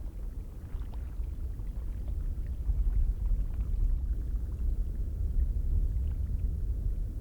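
Icelandic geyser: a deep, uneven rumble with faint scattered ticks, getting louder about two and a half seconds in.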